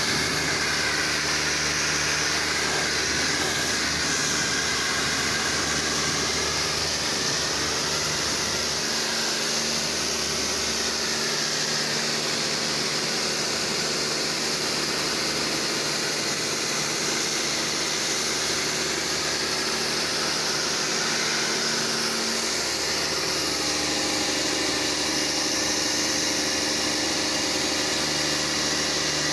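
Pressure washer running steadily, with the continuous hiss of its water jet shifting as the spray moves.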